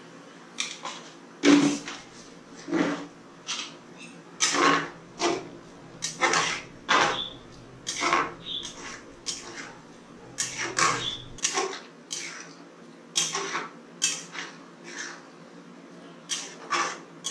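Metal spatula stirring thick dal in a metal kadai, scraping and knocking against the pan in repeated short strokes, roughly one or two a second.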